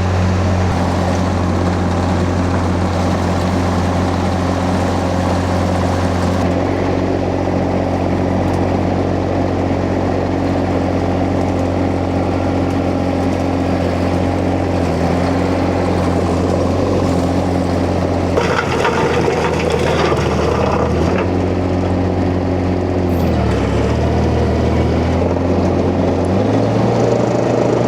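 Huayee LHY680 mini skid steer's engine running at low throttle while it drives a hammer-knife flail mulcher. A few seconds of rougher, noisier running come after the middle, and the engine's pitch sags and recovers under load near the end.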